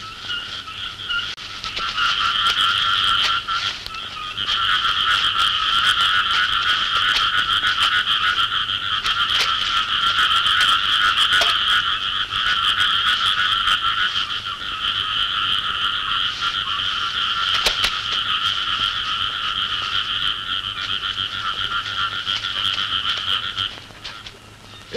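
A dense chorus of frogs croaking, a steady pulsing drone that swells in about two seconds in, dips briefly, and drops away near the end.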